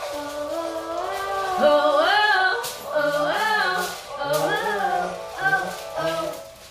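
Music with a singing voice: a melody of held and sliding notes, with a few sharp beats.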